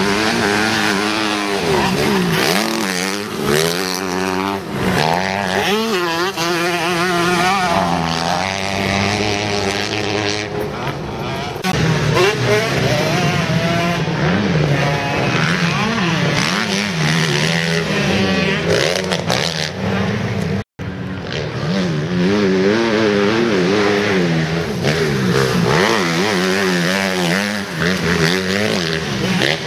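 Motocross dirt bikes running on a dirt track, their engines revving up and falling off again and again as they accelerate out of corners and over jumps, sometimes more than one bike at a time. The sound drops out for an instant about two-thirds of the way through.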